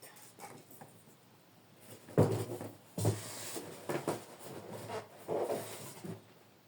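Model airplane kit parts and packaging being handled, with a few knocks and rubs about two, three, four and five seconds in.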